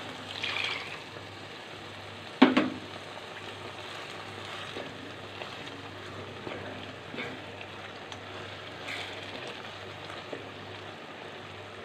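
Urad dal in spiced oil and water sizzling in a pan while a slotted spatula stirs and scrapes through it, with one sharp knock about two seconds in.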